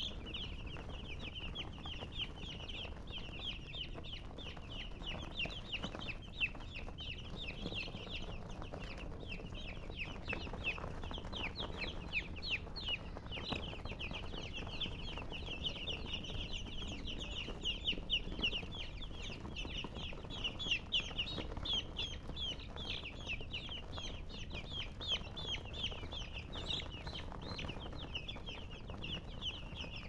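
A flock of baby chicks peeping without pause, many short high-pitched cheeps overlapping.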